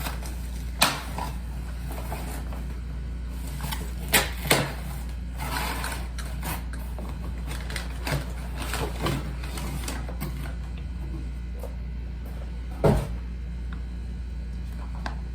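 Scattered knocks, taps and rustles of objects being handled, with sharp knocks about a second in, twice around four seconds and once near thirteen seconds, over a steady low hum.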